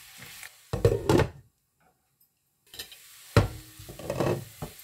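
A wooden spatula stirs and scrapes cubed potatoes around a nonstick frying pan, over faint sizzling. There are two short bursts of stirring, one about a second in and one that starts sharply past the three-second mark, separated by about a second of dead silence.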